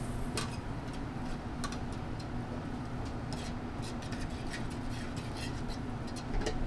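A metal spoon stirring in a stainless sauté pan, giving scattered light clicks against the pan as butter is worked into the pea and white-wine sauce to melt and emulsify. A steady low hum runs underneath.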